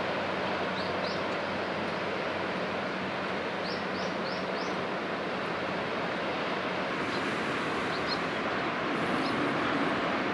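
Steady noise of a large cruise ship passing close, with a low machinery hum under it. A small bird chirps in short quick notes: twice about a second in, then four times in a row around four seconds in, and faintly later.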